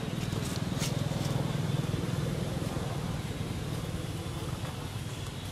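A motor vehicle's engine running somewhere off-picture: a low hum that swells a second or two in, then slowly fades. A few faint clicks come near the start.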